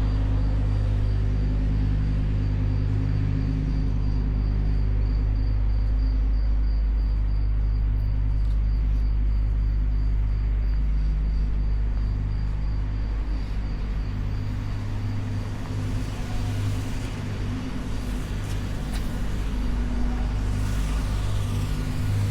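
Steady low engine or machinery rumble with a deep hum, easing slightly in the second half.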